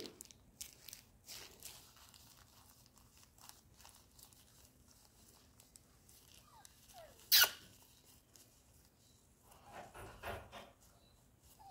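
Soft rustling and crinkling of plastic gloves and cloth around a kitten held in a towel while its eye is wiped. About seven seconds in the kitten gives one short, sharp cry, and a few faint mews follow near the end.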